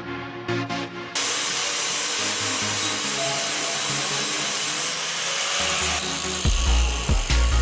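Electronic background music: a loud, steady hiss sweeps in about a second in and holds, then heavy deep bass beats come in near the end.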